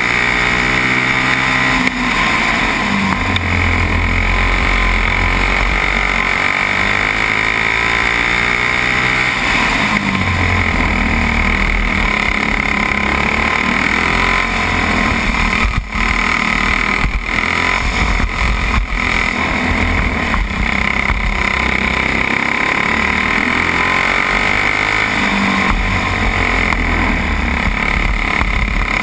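Racing kart engine running hard under an onboard camera, its pitch falling and rising again as the kart lifts for corners and accelerates out of them.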